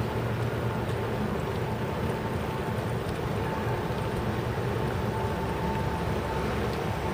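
Steady rumble and hiss of travel noise from moving along a city street, with a low hum and a faint, thin, steady tone above it.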